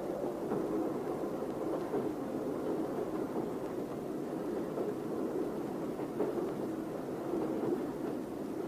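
Steady low rumble of a passenger train running, heard from inside a carriage.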